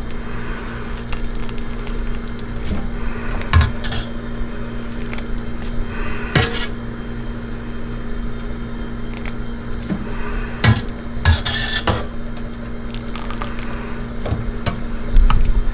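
A metal scoop clinks and knocks against a stainless steel pot and a mesh strainer as blanched fiddleheads are ladled out to drain, with water splashing off them now and then. A steady low hum runs underneath.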